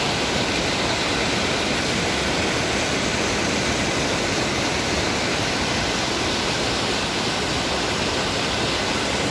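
Fast-flowing river rushing through whitewater rapids: a steady, even roar of water with no breaks.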